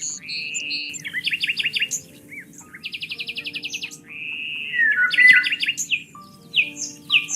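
Several songbirds chirping and singing over one another: fast trills of evenly repeated notes, short rising and falling whistles, and sharp chirps.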